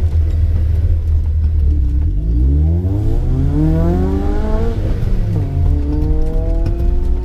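Car engine revving over a low rumble. Its pitch climbs for about two and a half seconds, falls back sharply, then settles at a steady, raised speed.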